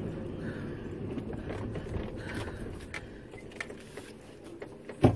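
Steady low rumble of a car's cabin, with faint scattered clicks and one sharp knock about five seconds in.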